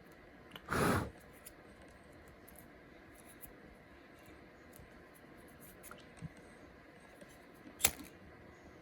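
Small handling noises of hands working on spliced wires: a short rustle about a second in, scattered faint ticks, and one sharper click near the end.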